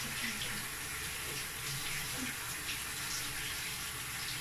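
Kitchen tap running steadily into the sink while someone washes sticky dough and flour off their hands.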